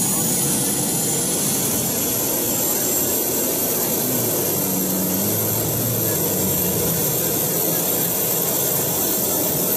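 Gas-turbine motorcycle engine running with the bike standing still: a steady jet-like rush under a high whine that climbs slowly at the start, then holds level.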